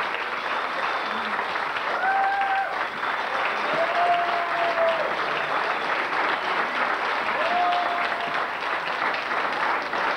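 Audience applauding steadily, with three short held tones standing out above the clapping.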